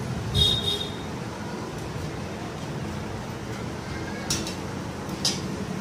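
Small metal parts clinking as they are handled at the engine crankcase: a sharp clink with a brief metallic ring about half a second in, then two lighter clicks near the end, over a steady low hum.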